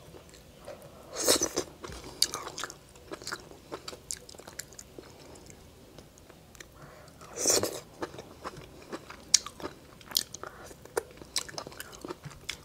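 Close-miked eating of cooked lobster: chewing with many small clicks and crackles of the shell being picked apart by hand. Two louder, longer noises stand out, one about a second in and one just past the middle.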